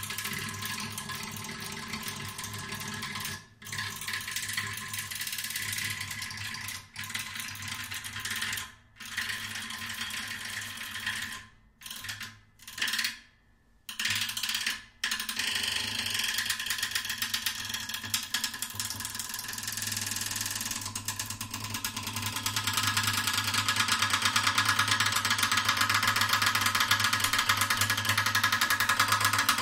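Acoustic guitar set buzzing and rattling by a small mechanical agitator pressed against its body and strings, a dense mechanical drone with ringing string tones. It stops and restarts several times in the first half, then runs unbroken and grows louder over the last third.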